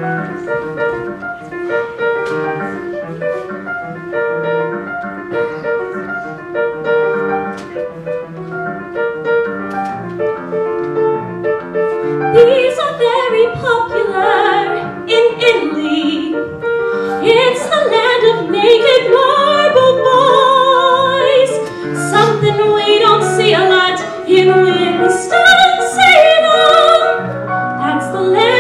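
Piano accompaniment plays alone for about twelve seconds, then a female solo singer comes in over it with a full, classical-style voice and strong vibrato, sung into a handheld microphone.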